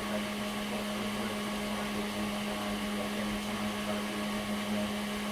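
Steady electrical hum with a fan-like whir from running workshop equipment, one low tone held without change.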